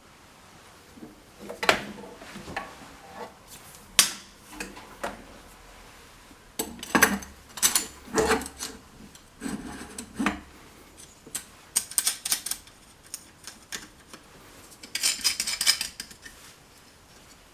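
Metal parts and tools being handled: irregular clinks, knocks and scrapes, with clusters of quick clinks in the middle and a short rasping scrape near the end. No grinder motor runs.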